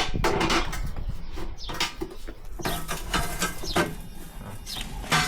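Clicks, knocks and rattles of sheet-metal panels and screws being handled as an outdoor AC condenser unit is taken apart.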